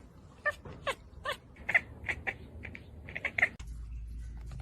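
A cat chattering and chirping at birds: a quick run of about a dozen short, high chirps, some falling in pitch. They stop about three and a half seconds in, giving way to a steady low hum with faint clicks.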